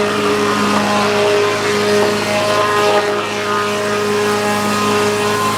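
Sawmill engine running steadily under load as the band blade cuts lengthwise through a pine log, with a steady whine from the blade in the wood.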